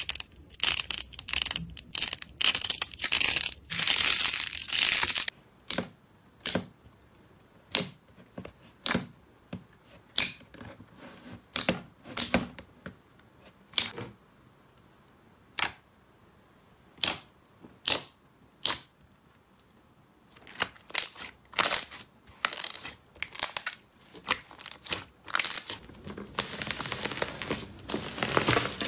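Slime being handled by hand: a dense crackling as green slime balls are squeezed for the first five seconds. Then single sharp clicks and pops, a second or so apart, as a glossy purple slime is pressed. Near the end comes dense crinkling from paper labels stuck over a yellow slime ball as hands press on it.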